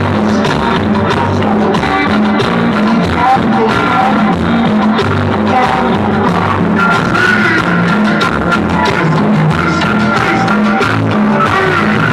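Loud dance music with a steady beat and a singing voice, played through a mobile DJ sound system (a Mexican "sonido") for dancing couples.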